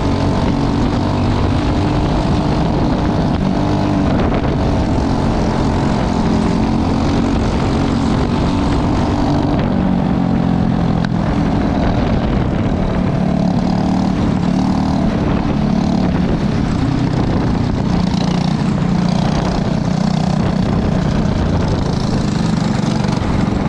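Briggs & Stratton 206 single-cylinder four-stroke kart engine running hard on track, its pitch rising and falling with throttle.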